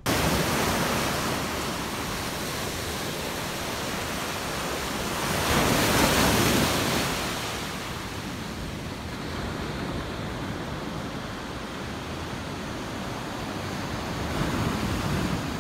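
Ocean surf breaking on a beach, a steady wash of waves with wind rumbling on the microphone; it swells loudest about six seconds in and again briefly near the end.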